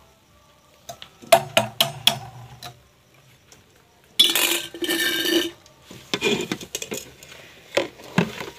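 Metal milk vessels clinking and scraping as a mug scoops milk from an aluminium bucket and pours it through a tea strainer into a steel milk can. About four seconds in there is a second or so of rushing, splashing milk.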